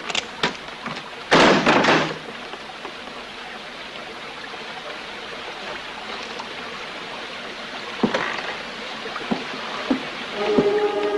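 A few sharp knocks, then a short, loud noisy crash about a second and a half in. After it comes a low steady hiss with a few faint scattered clicks and thuds.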